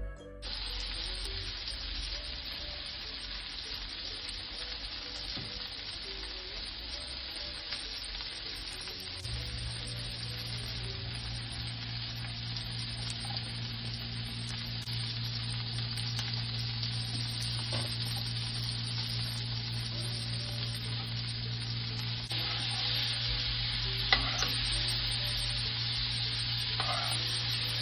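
Steak sizzling in hot oil and butter in a non-stick frying pan, with a steady hiss throughout. A low steady hum comes in about a third of the way through, and near the end a metal spoon clinks against the pan a couple of times while basting the steak.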